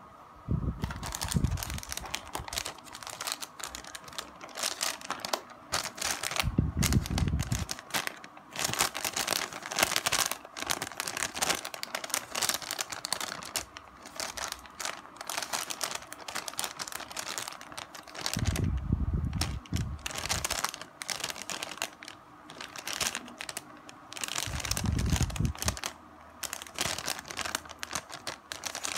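Metallized plastic snack packet of crispy seaweed crinkling and crackling as it is held and squeezed in the hands, with a few dull low bumps from the handling.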